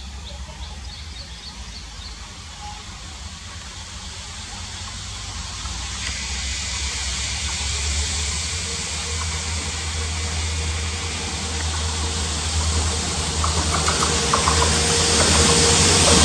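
Twin WDG4 diesel locomotives, EMD two-stroke engines, approach with a loaded coal train: a steady low engine rumble grows louder throughout. A rushing of wheels on rail builds from about six seconds, and a thin steady whine joins about ten seconds in.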